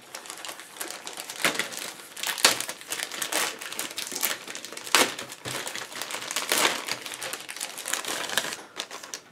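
Clear plastic bags around plastic model-kit sprues crinkling and rustling as they are handled, with several sharper crackles.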